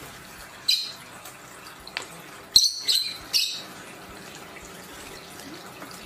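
Lovebirds giving short, shrill chirps: one under a second in, then three in quick succession around the middle, with a single sharp click between them.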